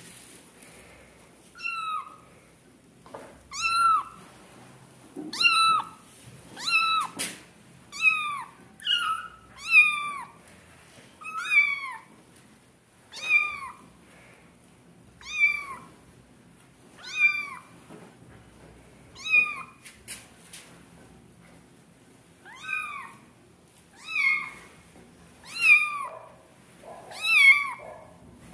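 Newborn kittens mewing: thin, high-pitched calls that rise and then fall, repeated roughly once a second, with a short break a little after the middle.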